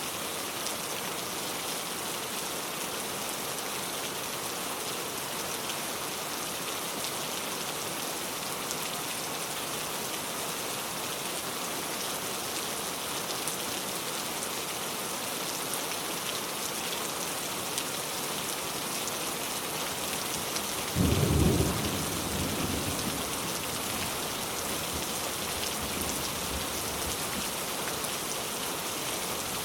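Steady rain falling. About two-thirds of the way through, a sudden loud clap of thunder rumbles away over the next few seconds.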